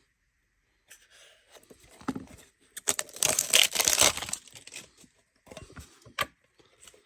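Plastic wrapping being torn and crinkled as a small trading-card mini tin is opened, with scattered clicks and taps of handling. The tearing is loudest about three seconds in and lasts a little over a second.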